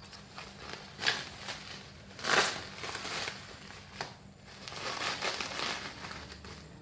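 Packing material crinkling and rustling as it is handled during unpacking, in irregular bursts with the loudest about two and a half seconds in.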